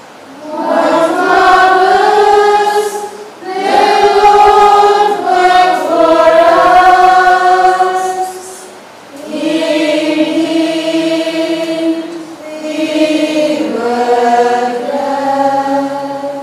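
Choir singing the sung response of a responsorial psalm at Mass: a slow, chant-like melody in four long held phrases with short breaks between them.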